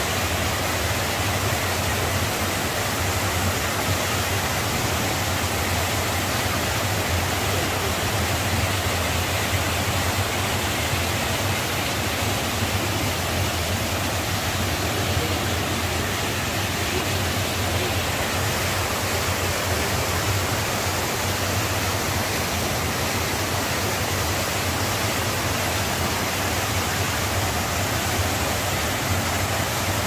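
Mountain stream rushing over boulders and down small cascades, a steady unbroken rush of water.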